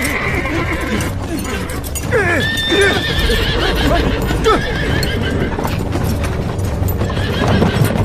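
Horses' hooves clip-clopping on stone paving as the horses pull carts away, with a horse whinnying about two seconds in. Background music plays underneath.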